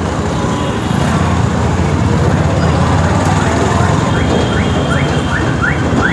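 Motorcycle riding through town traffic, its engine and wind making a steady low rumble on the rider's microphone. From a little before halfway, a short rising chirp repeats about twice a second.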